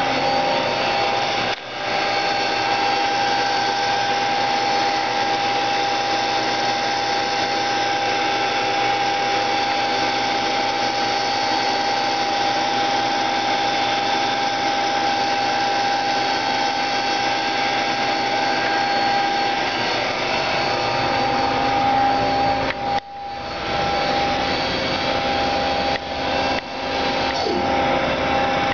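1998 Mazak QT-20 two-axis CNC lathe running under power: a steady machine whine with one strong held tone, dipping briefly twice.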